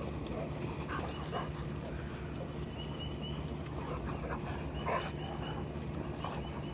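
Several dogs playing rough and tugging on a toy, with short play vocalisations and panting; the loudest cry comes about five seconds in. A steady low hum runs underneath.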